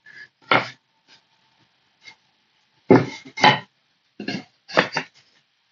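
Pallet-wood slats being set down and butted into place on a plywood assembly jig: a scattering of short wooden knocks, the two loudest about three seconds in and a few more near the end.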